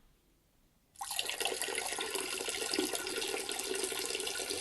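Water running, starting suddenly about a second in and then going on steadily as an even rushing.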